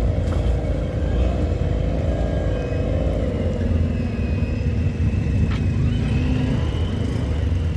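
Engine of an off-road-modified Toyota Land Cruiser working under load as it crawls over rocks: a steady low rumble with a wavering whine over its first few seconds.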